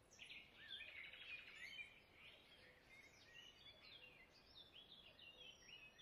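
Faint birdsong: many short chirps and whistles, with a quick trill about a second in.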